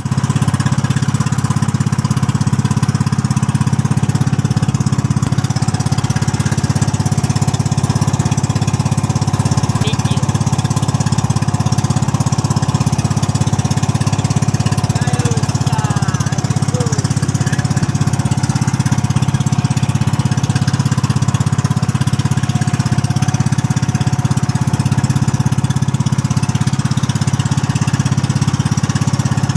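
Small single engine of an outrigger boat running steadily under way: a loud, even drone with a fast regular pulse that does not change in speed.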